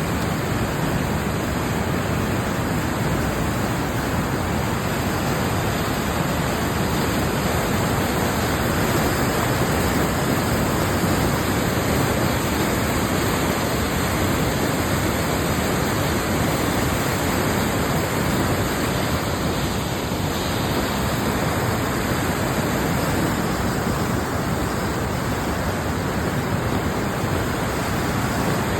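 Fast-flowing river in spate: a loud, steady rush of whitewater.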